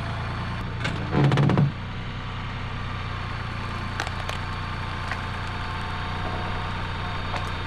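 Tractor engine running steadily, briefly louder for about half a second a little over a second in, with a few light knocks later on.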